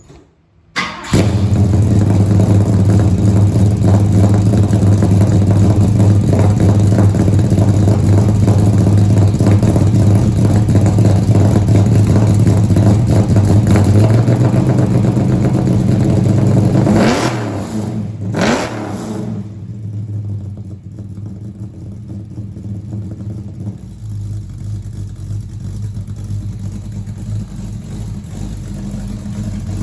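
1966 Ford Mustang engine started from cold: it fires about a second in and runs loud and steady. Near the middle it is revved twice in quick succession, then settles to a quieter, steady idle.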